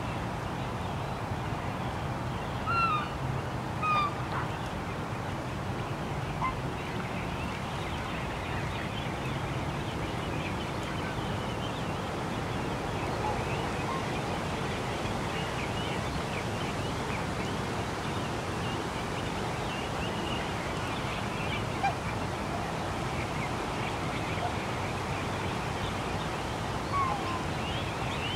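Lakeside ambience: a steady rush of wind and distant traffic, with a few short waterfowl calls about three and four seconds in and again near the end.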